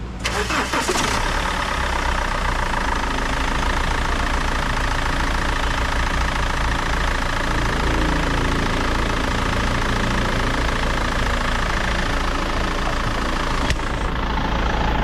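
2008 BMW 520d's four-cylinder diesel engine starting with a short crank, then idling steadily. Its serpentine and air-con compressor belts have just been greased with dielectric grease and run with no squeal. A single click near the end.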